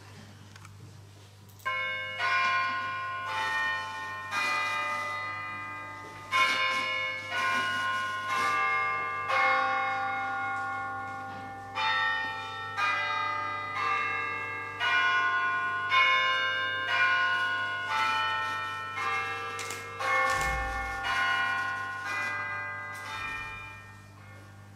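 Church bells ringing: several bells of different pitches struck in a steady pattern, about two strokes a second, each stroke ringing on into the next. The ringing begins about two seconds in and dies away near the end.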